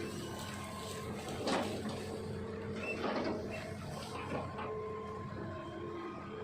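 Hitachi ZX200-5G excavator's diesel engine and hydraulics running steadily with a thin whine, while the machine chops up oil palm trunks, giving three crunching knocks about a second and a half apart.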